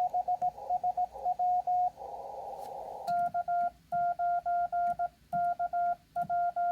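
Morse code (CW) tones at about 700 Hz from an HF amateur radio transceiver. For the first two seconds a received station keys in receiver hiss, then there is about a second of plain band noise. From about three seconds in, the operator's own keying sidetone sends his call sign, clean with silent gaps between the dots and dashes.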